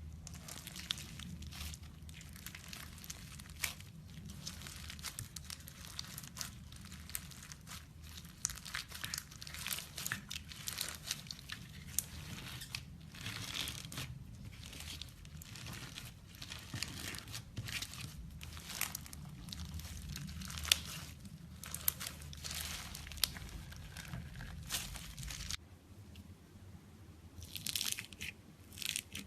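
Slime being squeezed and worked by hand, giving a dense, irregular run of crackles, pops and crunchy clicks.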